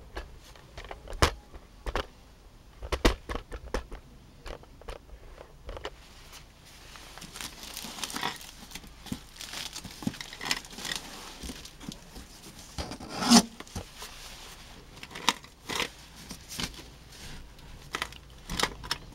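A cardboard box being unpacked by hand: clear plastic wrapping and tape crinkling and tearing, and cardboard flaps rustling and knocking as they are pulled open. Irregular sharp knocks run throughout, with the loudest about 13 seconds in.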